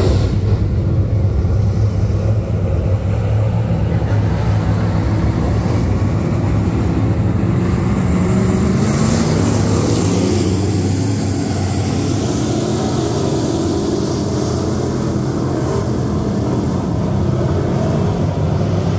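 Dirt-track stock car engines racing around the oval, a continuous engine drone from the field. About halfway through, a pack of cars passes close, the engine pitch rising and falling as they go by.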